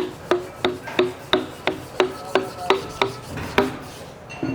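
A hand tool worked on the pump in short, even strokes about three a second, which stop near the end, followed by one small knock.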